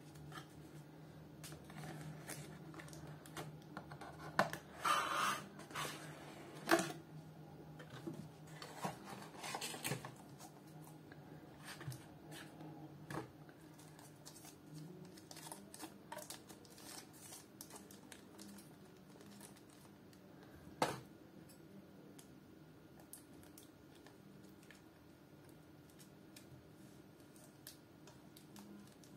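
Hands handling paper, cardboard packaging and a plastic-wrapped device: rustling and crinkling with scattered clicks and taps, loudest about five seconds in and again near ten seconds, over a faint low hum. Near the end scissors cut the plastic packaging.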